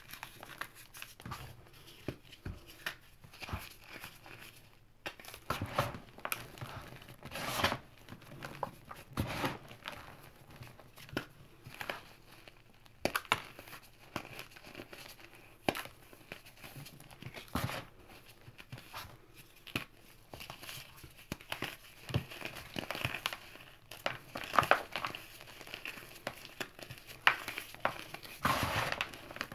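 Hands crumbling and squeezing crispy chunks of gym chalk and cornstarch, and sifting the powder through the fingers. It makes an irregular run of soft crunches and crackles, with sharper crunches now and then.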